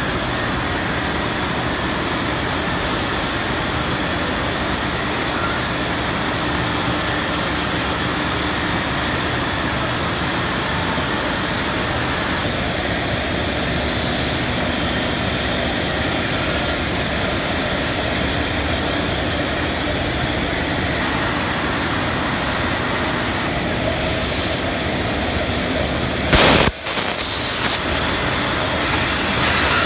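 Fancy-yarn bobbin winding machine running with a steady, dense mechanical noise, with one brief loud burst about 26 seconds in.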